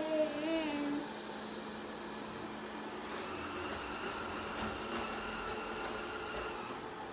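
360 S9 robot vacuum cleaner running with a steady motor hum and a faint high whine. A short pitched, wavering tone stops about a second in.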